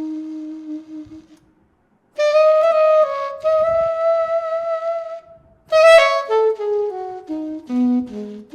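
VHorns virtual alto saxophone played live through an EWI USB wind controller: a held low note fades out, then after a short pause a phrase of sustained notes, and near the end a loud accented note followed by a quick descending run.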